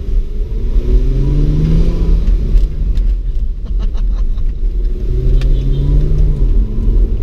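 2009 Honda Accord's 3.5-litre J35 V6 breathing through a new dual chambered-muffler exhaust, revving under acceleration. Its pitch climbs about a second in, drops back, and climbs again about five seconds in, over a steady low rumble.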